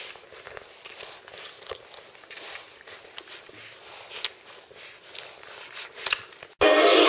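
Czechoslovakian wolfdog puppies suckling at their mother's teats: soft, irregular wet smacks and clicks. Near the end, loud music cuts in abruptly.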